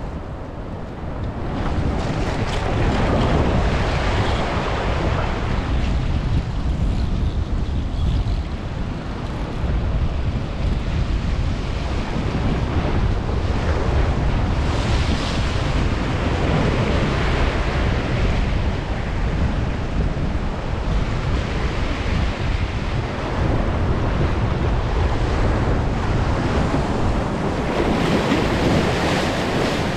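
Sea waves washing and surging against rocks, with three bigger surges about twelve seconds apart, and wind buffeting the microphone.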